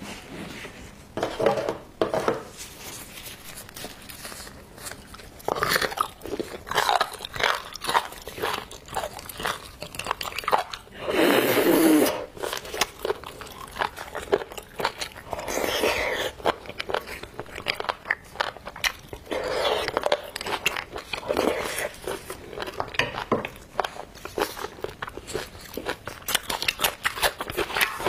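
Close-miked eating sounds: a spoon scraping braised beef bone marrow out of the bone and the marrow being chewed, as irregular clicks and short bursts, the loudest about twelve seconds in.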